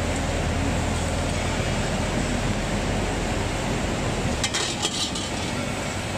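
Steady hum and noise of a large hydraulic forging press's power unit running idle, with a quick run of clicks and knocks about four and a half seconds in as a metal disc blank is handled at the die.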